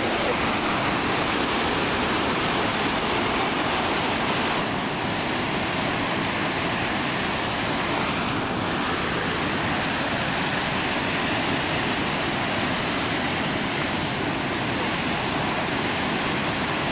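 Victoria Falls, the Zambezi River's great waterfall: a steady, even rush of falling water.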